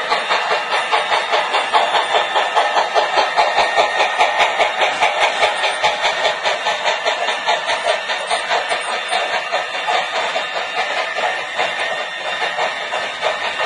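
Model passenger train running past with a steady rhythmic clatter of about four to five beats a second, growing fainter in the second half.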